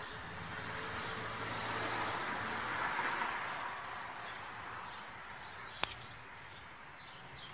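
A car passing on the road: its noise swells to a peak about three seconds in and then fades. A single sharp click comes near the end, with faint bird chirps.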